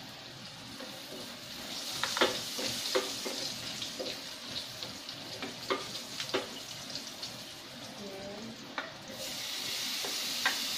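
Chopped aromatics sizzling as they fry in oil in a pan, stirred with a spatula that knocks against the pan about eight times. The sizzle gets louder about nine seconds in.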